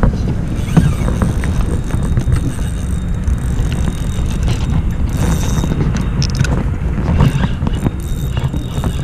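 Wind buffeting the camera microphone as a loud, uneven low rumble, with scattered small clicks and knocks from a fishing rod and reel being handled.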